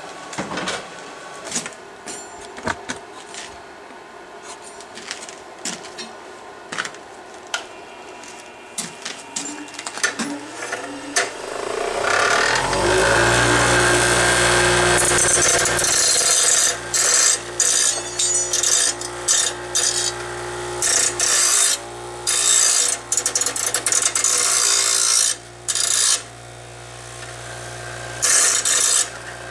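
Scattered clicks and knocks of metal being handled, then an electric power tool spins up about twelve seconds in and runs, its sound cutting in and out repeatedly as it is worked against the forged piece to clean it up.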